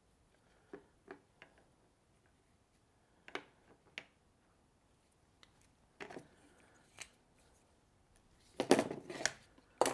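Handling of a chainsaw recoil starter while a knot is tied in its starter rope: scattered small clicks and rustles of rope and plastic, with a louder cluster of clicks and scrapes near the end.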